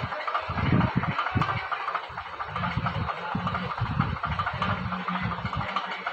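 Perforated metal ladle scraping and turning freshly dum-cooked rice in a metal pot, with irregular low knocks of the ladle against the pot under a steady hiss.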